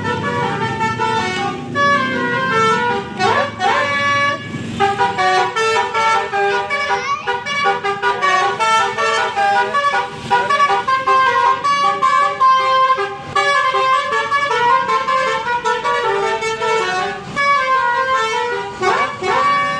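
Basuri musical air horn on a tour bus playing a long melody of held notes that change pitch in steps, with sliding notes about three seconds in and again near the end.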